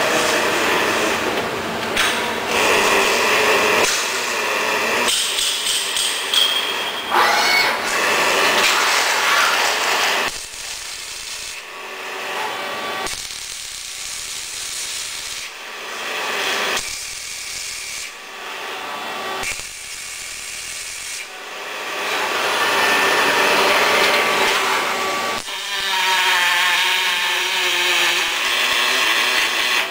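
Arc welding by a robot's gas-shielded wire-feed torch on a motorcycle frame: a continuous crackling hiss of the arc. Its level changes abruptly several times and is lower in the middle stretch. A short rising whine comes about seven seconds in.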